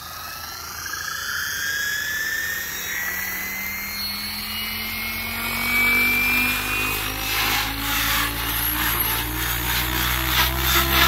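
XLPower Specter V2 electric RC helicopter spooling up on its Egodrift 4530 brushless motor: a whine that rises steadily in pitch as the rotor head comes up to speed. Past the middle the rotor noise grows louder and choppier as the helicopter lifts off into a low hover.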